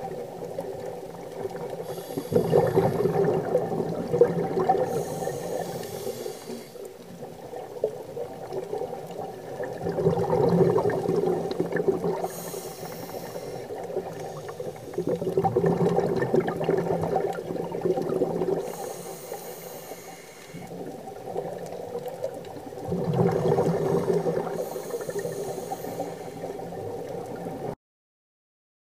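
Scuba diver breathing through a regulator underwater: a short hiss on each inhale, then a longer, louder rush of bubbles on each exhale. The cycle repeats every six or seven seconds, and the sound cuts off abruptly near the end.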